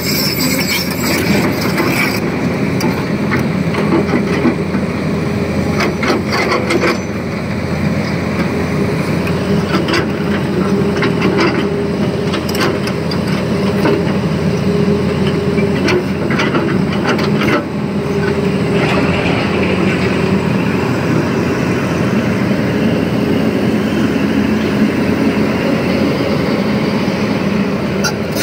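Tata Hitachi Zaxis 220 hydraulic excavator working, its diesel engine running steadily, with a few sharp knocks of bucket and rock.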